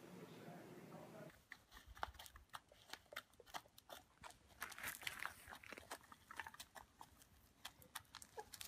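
Hens pecking scattered grain off a concrete step: a quick, irregular run of faint sharp taps and clicks, beginning after a low hum in the first second or so.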